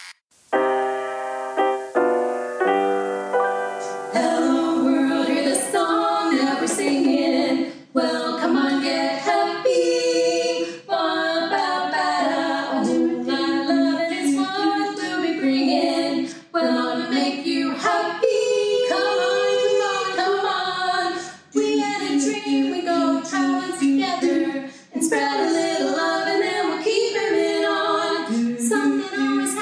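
Female voices singing a cappella in close barbershop-style harmony, opening with a few short held chords before the song moves on.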